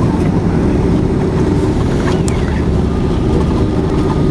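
Loud, steady rumble of a Boeing 767-300's engines and airframe heard from inside the passenger cabin during the landing roll just after touchdown, with a steady low hum running through it.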